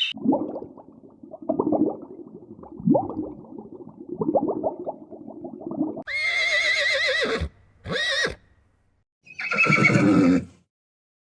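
A horse neighing. About six seconds of low, rough nickering give way to a long wavering whinny that falls off at the end, a short falling cry, and another wavering whinny.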